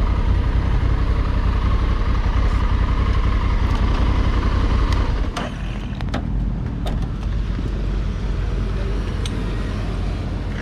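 Honda Africa Twin's parallel-twin engine running under throttle, then easing off about five seconds in, when the low rumble drops in level. A few sharp clicks follow over the next two seconds.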